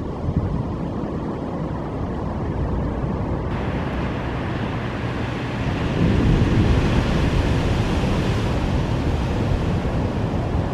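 Sea surf washing onto the shore, with wind buffeting the microphone in a low rumble; a wave comes in louder about six seconds in.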